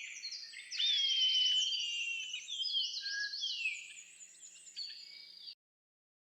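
Several wild birds singing at once: fast high trills and repeated chirping phrases, with one long, slowly falling whistled note about a second in. The sound cuts off abruptly near the end.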